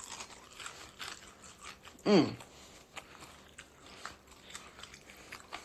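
A person chewing and biting into saucy fried chicken wings, with many small wet, crunchy clicks. About two seconds in comes one short hummed 'mmm' that falls in pitch.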